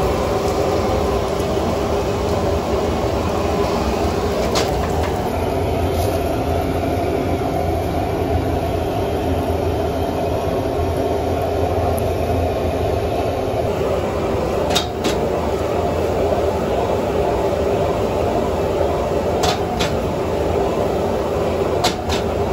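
High-flame gas wok burner rushing steadily while an egg omelette fries in oil in the wok. A few sharp clicks of cooking utensils against the wok break through.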